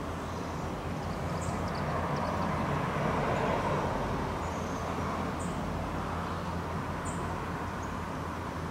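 Outdoor background noise: a steady low hum with a broad rumble that swells about two to four seconds in, like a distant vehicle passing. A few brief high chirps sound over it.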